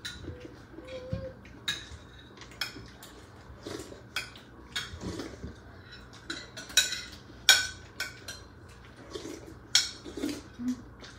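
Spoons and forks clinking and scraping against plates and bowls during a meal, in scattered sharp clicks, the loudest a little past halfway through.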